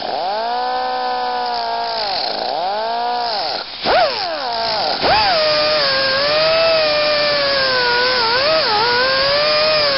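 Cutoff tool's abrasive wheel spinning with a high whine, its pitch dipping and recovering in the first few seconds. From about five seconds in it cuts the long end off a bolt: a grinding hiss joins the whine, and the pitch sags and wavers under the load.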